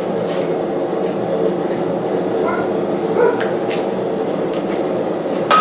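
LP gas forge burner running steadily, fed by a nearly empty gas bottle, with a few light clinks of metal about midway. Right at the end a hammer strikes the hot steel on the anvil with a ringing clang.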